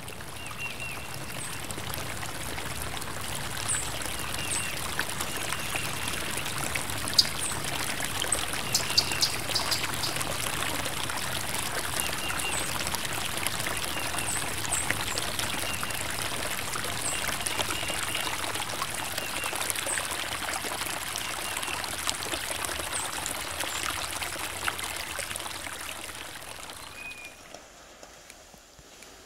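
Steady rush of running water, like a flowing stream, with short high chirps scattered through it; it fades away near the end.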